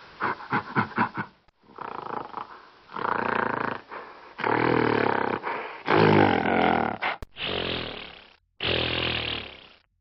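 Gorilla growling: a quick run of short grunts, then several long, deep, rough growls of about a second each, the loudest about six seconds in.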